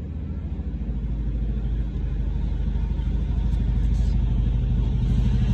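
A loud low rumble with a fast, even pulse, swelling slowly and cutting off suddenly near the end.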